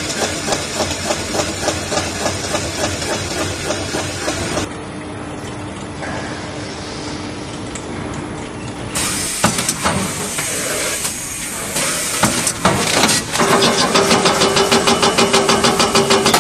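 Block-bottom paper bag filling and packing machine running, heard in several separate shots. First a dense mechanical clatter, then a quieter hum with a steady low tone, then scattered clicks. Near the end comes a fast rhythmic clatter of about five beats a second over a steady tone.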